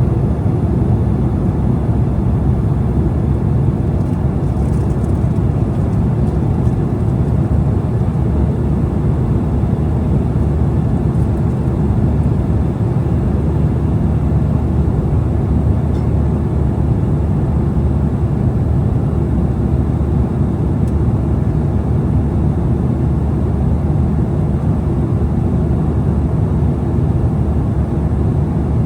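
Steady cabin noise inside an Embraer E175 regional jet on approach: a low rumble of engines and airflow holding at an even level.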